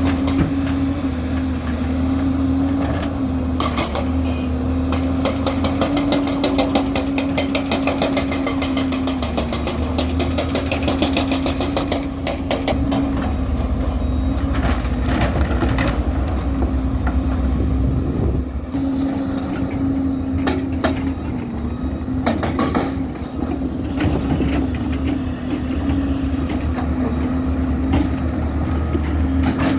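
Heavy diesel engine of construction machinery running steadily under load, with repeated metallic knocks and rattling at intervals.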